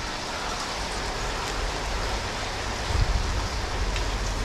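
Steady heavy monsoon rain falling, heard from under a shed, with a low rumble underneath that swells about three seconds in.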